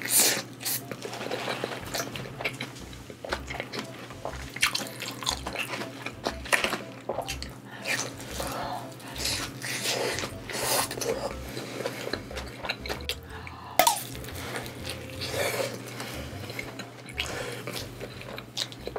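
A person chewing a mouthful of cheese pizza, with many small irregular mouth clicks and smacks.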